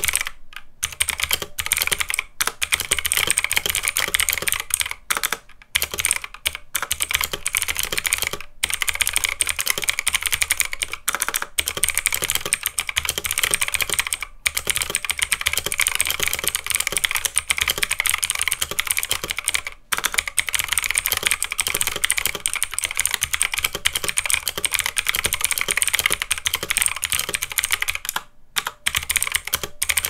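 Steady typing on an Anko Mini 60% mechanical keyboard with Xinda blue clicky switches in a plastic plate and case. It makes a dense, continuous stream of loud clicks, broken by a few short pauses.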